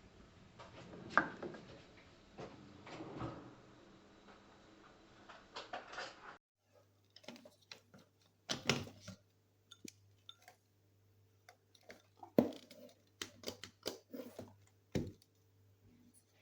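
Kitchen appliance parts being handled: irregular knocks and clicks of glass and plastic pieces set down and fitted together, with no motor running. A faint steady hum sits under the second half.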